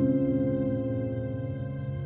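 Soft ambient background music: one held chord ringing out and slowly fading.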